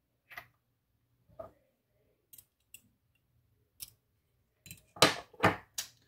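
Small metal clicks and taps of tools and parts being worked on a disassembled Yale Superior pin tumbler lock: a few scattered light clicks, then three louder knocks in quick succession near the end.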